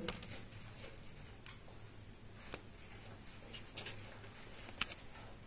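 Faint rubbing of a hand wiping marker writing off a whiteboard, with a few light clicks scattered through it, the sharpest near the end, over a low steady hum.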